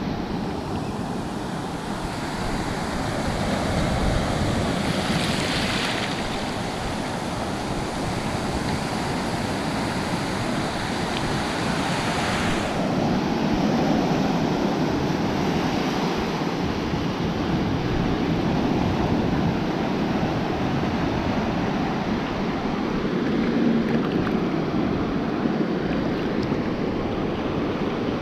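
Ocean surf washing and fizzing around a camera held at the water's surface, swelling louder as waves roll through every several seconds.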